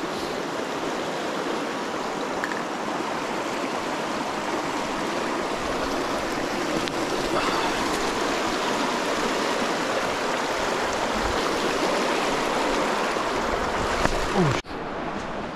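Steady rush of the Virgin River's shallow water flowing over rocks, with a brief dropout near the end.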